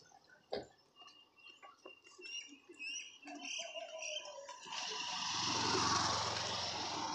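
Birds chirping, then a motorcycle passing on the road, its engine and tyre noise swelling from about five seconds in and loudest near the end.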